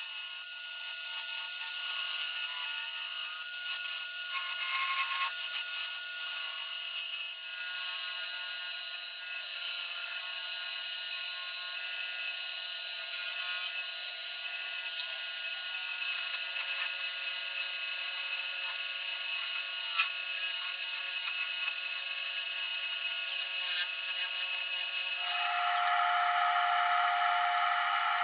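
A bowl gouge cutting a cherry bowl blank spinning on a wood lathe: a steady scraping hiss of the tool shearing the wood. Near the end the sound changes to a steadier hum with a few fixed pitches.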